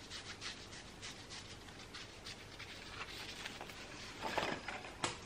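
Faint rustling, scraping and light tapping of ribbon and paper Christmas decorations being handled and packed into a cardboard box, a little louder about four seconds in.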